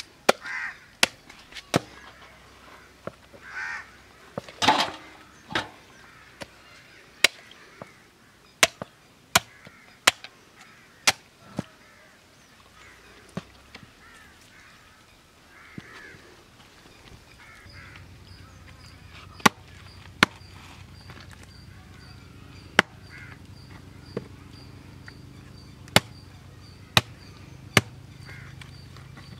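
A knife and a meat cleaver chopping through a whole country chicken on a wooden board: a dozen or so sharp knocks, irregularly spaced, with a long pause in the middle.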